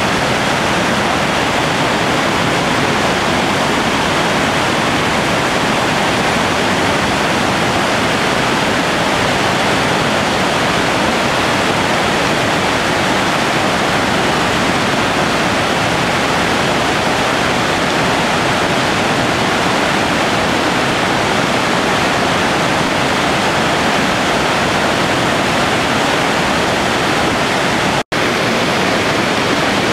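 Merced River whitewater rapids rushing: a loud, steady roar of churning water that cuts out for a split second near the end.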